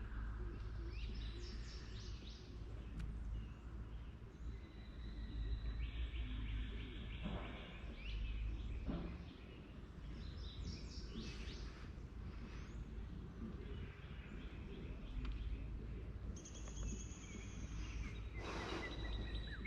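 Birds chirping and trilling on and off over a steady low rumble.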